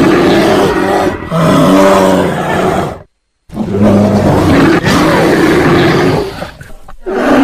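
Bear roaring loudly in long, low, rough calls, with a short break about three seconds in and another roar starting near the end.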